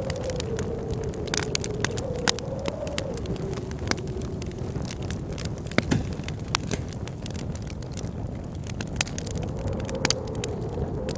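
Wood fire crackling with frequent sharp pops, one louder pop about six seconds in, over a low rumble of blizzard wind. A wavering wind howl rises and falls, fades out in the middle and comes back near the end.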